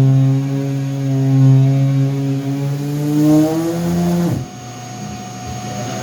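An electric power tool's motor running steadily, its pitch rising just before it cuts off abruptly about four seconds in, as when a saw comes free of a cut and is switched off.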